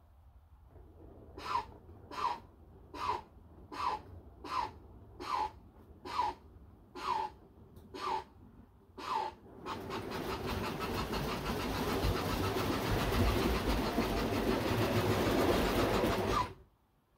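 Bachmann North Pole Special model steam locomotive puffing steady steam-engine chuffs, a little over one a second. These give way to a continuous rushing noise with a fast flutter that grows louder as the train comes near, then cuts off suddenly.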